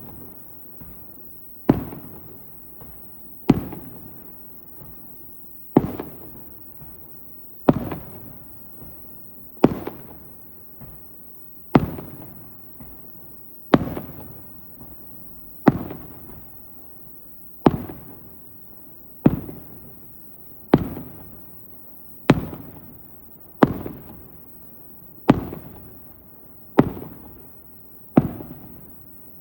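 Aerial firework shells bursting one after another: a sharp bang about every one and a half to two seconds, each trailing off in a rumbling echo.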